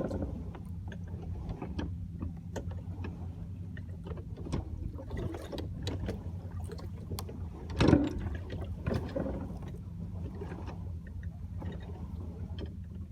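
A boat's engine runs with a steady low hum. Scattered knocks and clicks sound on board, with a louder bump about eight seconds in.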